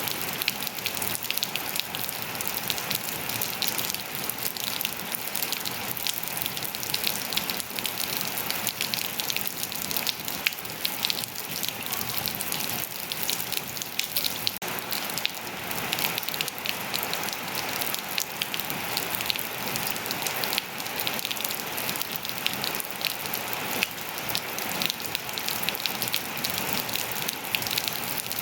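Steady rain falling and pattering on surfaces, a dense even hiss thick with fine drop ticks.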